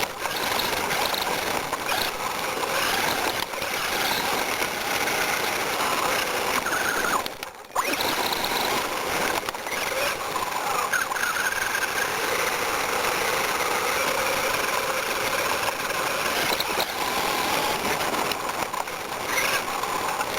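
RC-10 radio-controlled car driving over gravel, heard from a camera on its own chassis: a steady noisy rattle of gravel and drivetrain with a motor whine that rises and falls. The sound briefly drops out about seven and a half seconds in.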